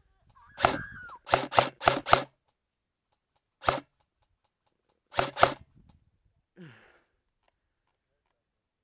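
Airsoft guns firing in sharp cracks: a single shot, then four in quick succession, then one more and a close pair a few seconds later.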